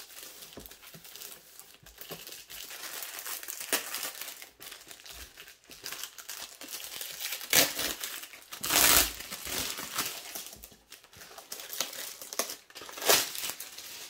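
Clear plastic shrink-wrap being peeled and torn off a cardboard box by hand, crinkling steadily with louder crackling bursts about halfway through and again near the end.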